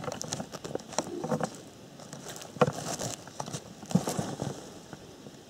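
Rustling and snapping of dry leaves and twigs in forest-floor litter as someone moves and crouches, with a few sharper crackles and soft knocks. The loudest come about two and a half and four seconds in.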